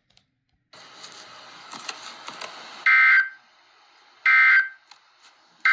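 Emergency Alert System end-of-message tones: three identical short digital data bursts, a harsh two-tone warble, about a second and a half apart, closing out the alert. They follow a faint hiss with small crackles.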